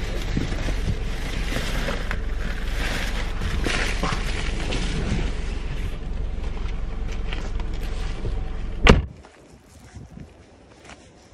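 A steady low car hum, heard from inside the cabin, with rustling and small knocks as a person moves about and gets out. About nine seconds in a car door slams shut, the loudest sound, cutting the hum off; after that it is much quieter, with a few faint footsteps.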